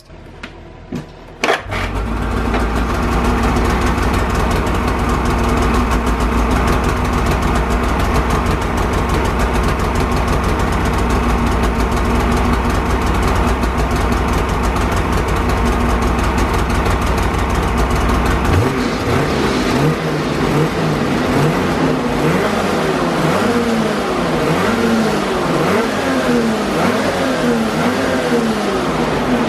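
2019 Polaris Patriot 850 two-stroke twin snowmobile engine through its stock exhaust can. It starts about a second and a half in and idles steadily, then from about two-thirds of the way through its engine speed rises and falls in repeated gentle waves.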